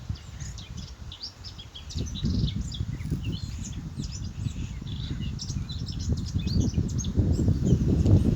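Small birds chirping and twittering, many short rapid calls throughout, over a low rumbling noise that grows louder from about two seconds in and toward the end.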